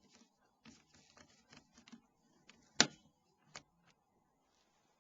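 Torque screwdriver driving small screws into a phone's plastic housing: faint scattered ticks, with a sharp click a little under three seconds in and a lighter one just after.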